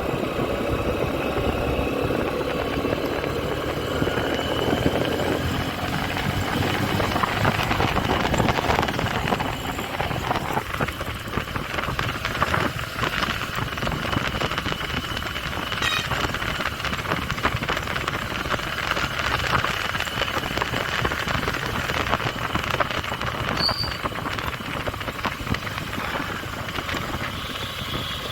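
Honda SP125 motorcycle being ridden, its single-cylinder engine note rising and falling in the first few seconds, with steady wind and road noise.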